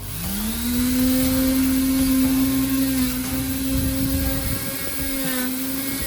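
A small electric motor spins up and then runs with a steady whine and a hiss, like a handheld cleaning power tool.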